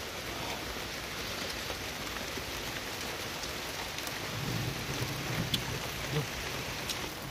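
Steady rain falling on a plastic tarp roof, an even hiss with a few separate drops ticking now and then.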